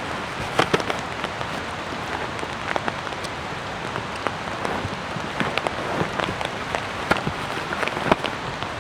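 Steady rain falling, an even hiss with irregular sharp drop impacts standing out through it.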